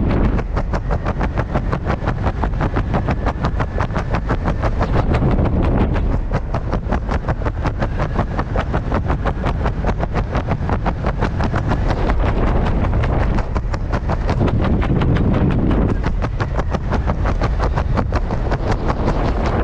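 Wind rushing over the microphone with a rapid, even fluttering, under an open reserve parachute after cutting away a malfunctioning main canopy.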